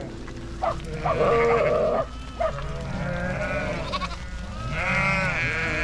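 A flock of sheep and lambs bleating: several wavering calls overlapping, loudest near the end.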